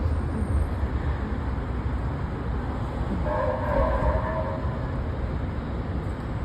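A steady low rumble, with a held pitched tone sounding for about two seconds in the middle.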